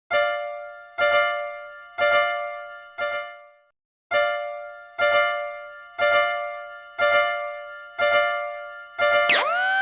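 Electronic piano-like warning chime of a cartoon level crossing, struck about once a second and ringing down after each strike, with one beat missed after the fourth. Near the end a loud sustained tone swoops up in pitch and holds.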